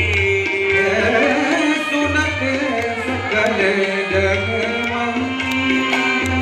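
Amplified devotional music over a loudspeaker system: a sung melody with long held notes over a tabla beat.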